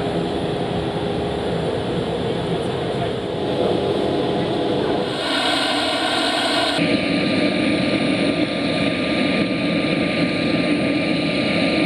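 Airbus A400M Atlas's Europrop TP400-D6 turboprop engines running on the ground: a steady drone with a thin, high whine over it. The sound shifts abruptly about five seconds in and again a little before seven seconds.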